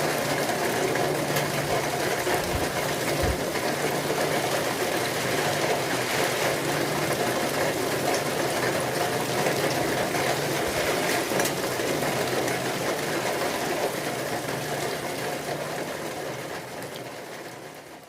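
Steady rain, a dense even hiss, fading out over the last few seconds.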